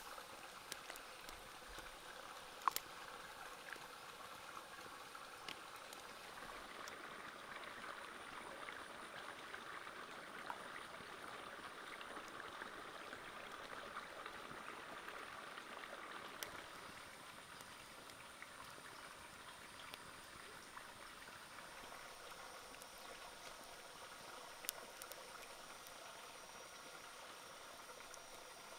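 Wok of snake pieces and chilies boiling in broth: a faint, steady bubbling hiss with scattered small clicks and pops.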